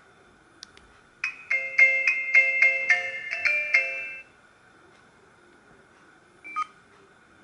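A Samsung SGH-E900 mobile phone playing one of its built-in ringtones: a quick, bright melody of repeated chords lasting about three seconds, which then stops. A short beep follows near the end.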